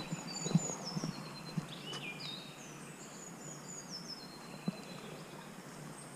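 Songbirds singing high, chirping phrases, with the walker's footsteps on a dirt path as short soft knocks, about two a second at first, then one more near the end.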